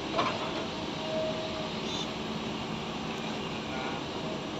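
Crawler excavator's diesel engine running steadily as it works its arm, heard as an even distant drone, with a short sharp knock just after the start.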